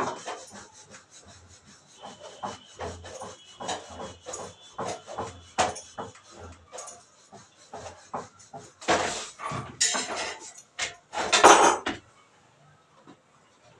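A wooden rolling pin rolls roti dough on a board, with repeated light knocks and rubbing strokes. Near the end come two louder scraping bursts.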